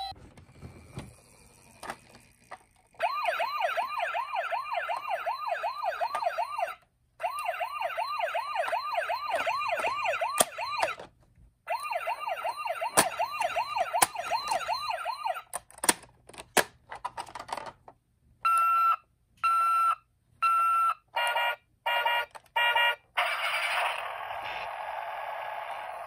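Electronic siren of a battery-powered toy emergency vehicle: a fast warbling yelp of about four or five sweeps a second, in three stretches with brief stops. Near the end come a few clicks and then a run of short beeps.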